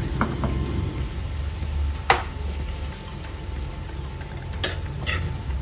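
Metal spatula stirring pineapple pieces and coconut gravy in a kadai, with several sharp clinks of the spatula against the pan, the loudest about two seconds in and two more near the end, over a low steady rumble.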